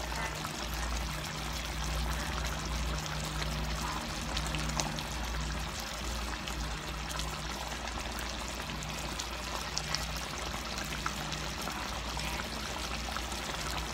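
Chicken and mushroom stew simmering in a pan on the stove: a steady bubbling hiss with scattered small pops, over a low hum.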